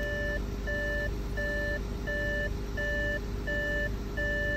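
An electronic warning beeper sounding steadily, about one and a half flat, even beeps a second, over a low steady hum.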